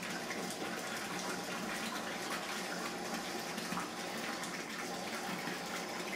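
Bathtub tap running, its stream pouring into a tub already part full of water: a steady splashing rush as the tub fills.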